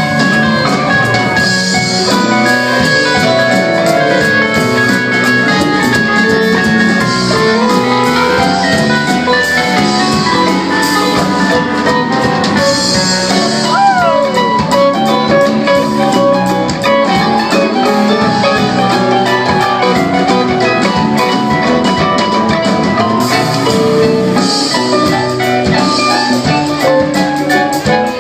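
A rock band playing live, an instrumental stretch with drums and guitar. About halfway through, one note slides down in pitch.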